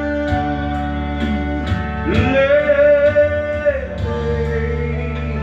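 Karaoke backing track with guitar, and a singer holding one long wavering note in the middle before dropping to a lower one.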